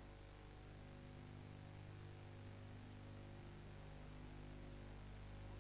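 Steady mains hum with hiss and no programme sound: the background noise of a home off-air videotape recording in a silent gap.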